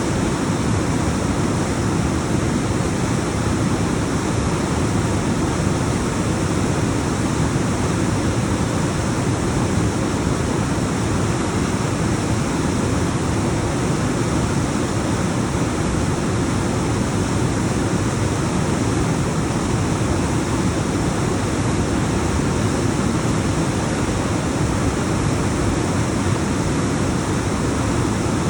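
Alpine waterfall: a continuous rush of water tumbling down rocks, steady and full, heaviest in the low range.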